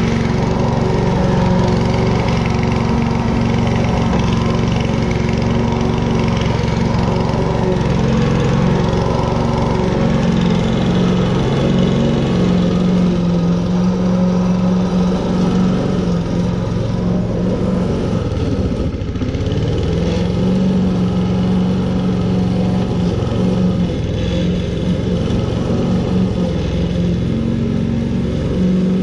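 Petrol walk-behind rotary lawn mower running steadily while cutting slightly overgrown grass, its engine note sagging briefly about two-thirds of the way through.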